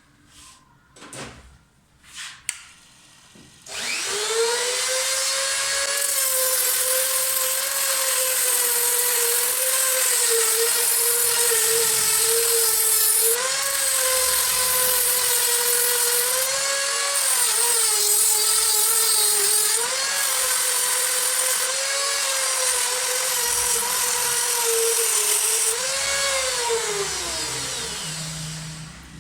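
A few clicks, then a mini grinder starts up and runs at a high, steady whine. Its pitch dips briefly several times as the spinning tool is pressed against the metal motor shaft to cut gear teeth. Near the end it is switched off and winds down in a falling whine.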